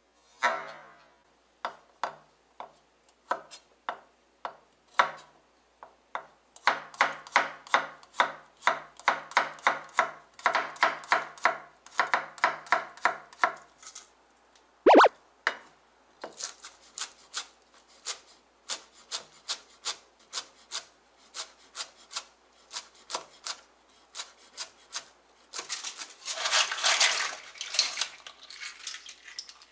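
Chef's knife chopping garlic on a wooden cutting board: sharp knocks of the blade on the board, in runs of quick, even strokes at about three to four a second. About halfway through comes one louder knock with a brief ring, and near the end a rougher stretch of scraping on the board.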